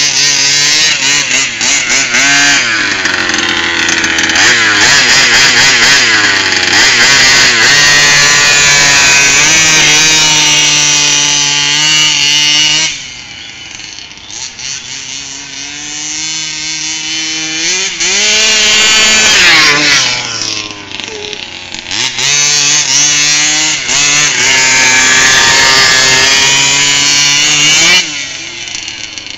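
29cc two-stroke petrol engine of a 1/5-scale Rovan Baja RC buggy running at high revs, the pitch rising and falling with the throttle. About 13 s in it drops back to a lower, lumpy idle, gives a brief rev, then runs hard again before easing off near the end. The owner reckons the engine probably needs an overhaul, though it runs.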